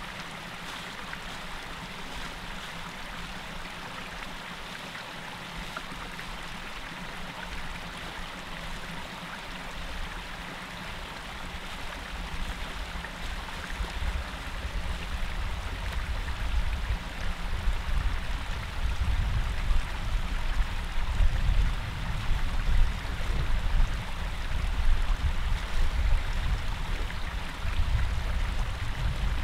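Small mountain stream running over stones, a steady rushing. From about halfway through, a low rumble rises beneath it and grows louder.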